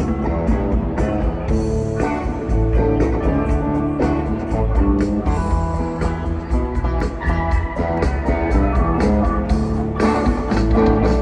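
Live rock band playing, with electric guitar to the fore over bass and drums.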